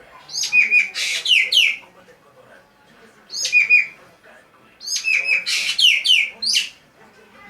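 Green magpie (ekek geling) calling in three bouts of loud, sharp notes that drop steeply in pitch, each bout a second or two long.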